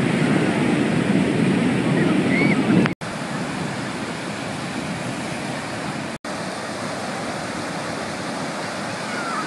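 Ocean surf breaking and washing up the shore in a steady rush of white noise, fuller and louder for the first three seconds. The sound cuts out for an instant twice, about three and six seconds in.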